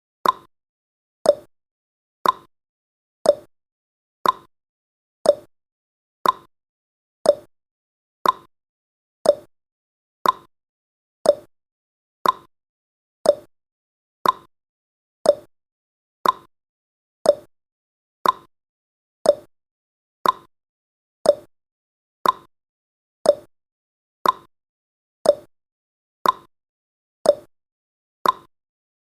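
Countdown timer's ticking sound effect: a sharp clock-like tick once every second, seemingly alternating between a higher and a lower tick like a tick-tock.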